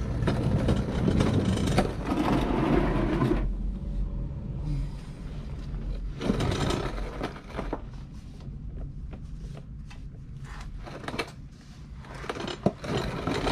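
Hands and tools working under a car at the transmission: scraping and scattered sharp clicks, with a louder rushing noise in the first few seconds.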